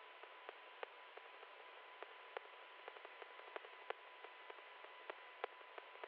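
Faint static hiss, cut off below and above like a radio or phone line, crackling with irregular sharp clicks about two or three times a second over a faint steady tone.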